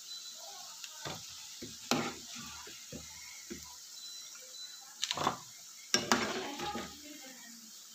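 Samosas frying in hot oil with a steady sizzle, while a metal slotted spatula scrapes and clinks against the pan as the finished samosas are lifted out into a metal strainer. The clinks come a few times, loudest about two seconds in and again around five to six seconds in.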